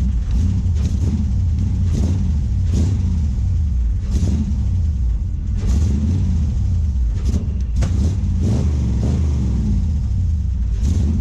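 GM L96 6.0-litre V8 running just after catching on its first start with a shot of starting spray, a steady low rumble with irregular sharp pops now and then.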